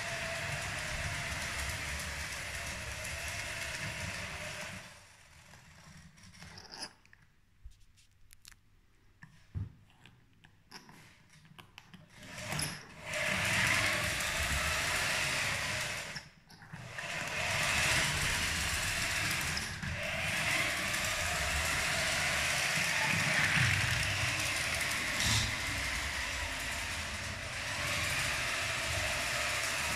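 LEGO 12V train motor in a powered carriage running the train along the track, a steady small-motor whir. About five seconds in it drops to near silence with a few clicks for several seconds, then runs again, with another short dip a few seconds later.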